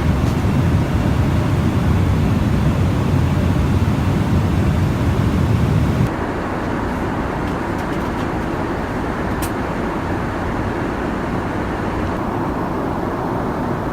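Steady engine and air noise inside a Boeing 777-300ER's cabin, a dense low rumble that drops abruptly in level and thins out about six seconds in.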